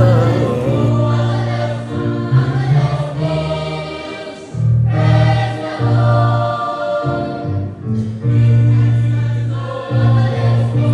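Children's choir singing a gospel song together, over a deep bass accompaniment that holds long notes.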